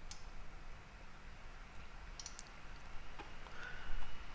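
Computer mouse clicks over a low room hum: one just after the start, a quick cluster about two seconds in, another about three seconds in. A short high note sounds near the end.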